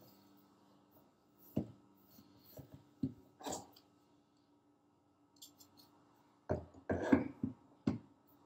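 Metal platter of a Rane Twelve DJ controller being handled, lifted off and set back onto its spindle base: a few scattered knocks and scrapes, then a quick run of clunks near the end as it is lined up and seated.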